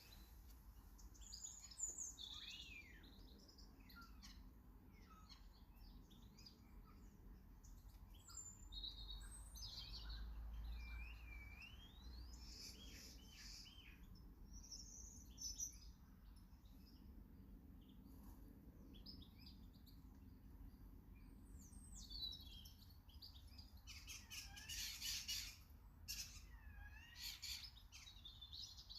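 Small garden birds chirping and calling, faint, with many short chirps and sweeping whistles overlapping, growing busier near the end.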